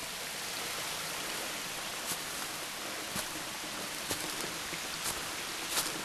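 Steady rush of falling water, an even hiss. From about two seconds in, footsteps on leaf litter and stones, about one a second.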